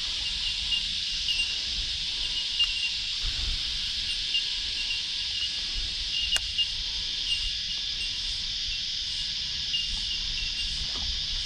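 Cicadas singing in a steady, high-pitched chorus with a pulsing note, over a faint low rumble, and a single sharp click about six seconds in.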